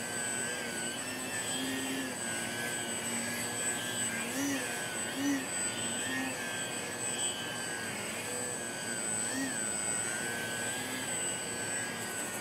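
Electric RC profile plane's Axi 2208/26 brushless motor and 9x5 propeller whining in a hover, the pitch rising and falling every second or so with quick throttle corrections.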